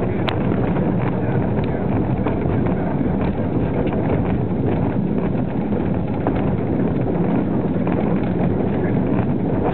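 BR 20T Shark brake van rolling along the rails while being propelled: a steady rumble of wheels on track with wind on the microphone and scattered clicks over the rail joints and points.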